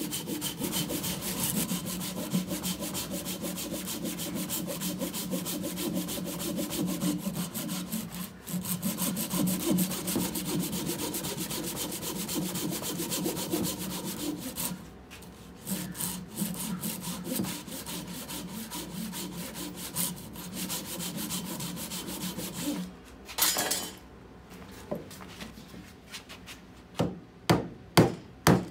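Handsaw rip-cutting down through a birch log stood on end, with fast, steady back-and-forth strokes. About halfway through the strokes turn shorter and broken. Near the end come a few sharp separate knocks.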